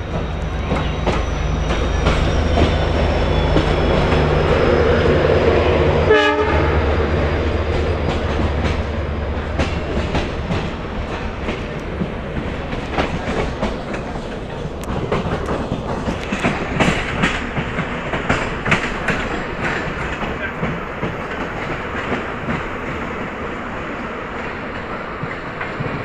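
Passenger train running, heard from on board: a low, steady engine drone for about the first ten seconds, then the clickety-clack of wheels over rail joints.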